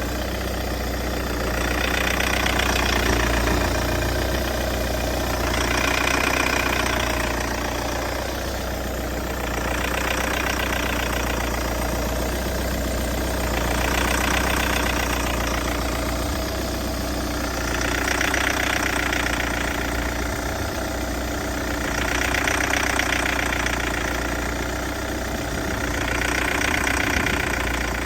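Peugeot 508 SW 2.0 diesel engine idling with a steady low hum, under a strange higher-pitched noise that swells and fades about every four seconds. The noise came on after the engine stalled and was hard to restart, and the owner does not know its cause.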